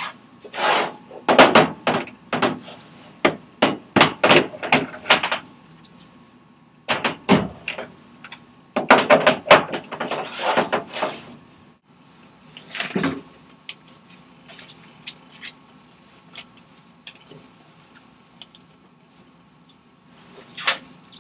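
Rubbing, scraping and knocking from gloved hands handling plastic lab gear: a Petri dish, a micropipette and a pipette tip box. The noises come in clusters through the first half, then a few light ticks and one more burst near the end, over a faint steady hum.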